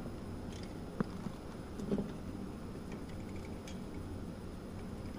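Faint handling noises: a single sharp click about a second in, a softer knock near two seconds and a few faint ticks later, over low steady room noise.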